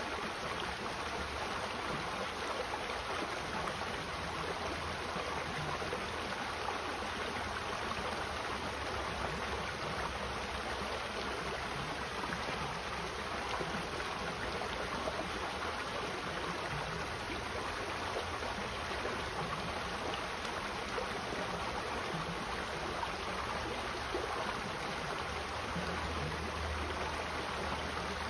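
Shallow rocky creek running over a small riffle of stones: a steady trickling, splashing rush of water.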